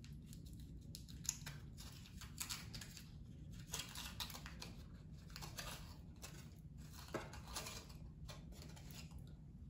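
Gold foil wrapper of a Ferrero Rocher chocolate crinkling as it is peeled open by hand, a quiet run of short, irregular crackles.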